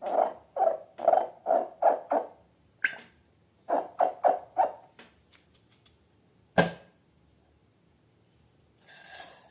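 Slime being squeezed and kneaded by hand: a run of short wet squelches, about two a second, in two bursts. A single sharp snap comes past the middle, and a brief hiss near the end.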